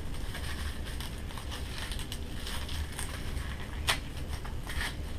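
Light rustling and small clicks of packaging being handled in a cardboard box, with one sharp click about four seconds in and a short rustle near the end.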